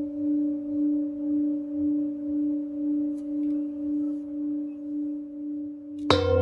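A singing bowl rings with one steady tone that slowly fades, wavering in loudness about twice a second. Near the end a deeper metal instrument is struck and rings out with many overtones.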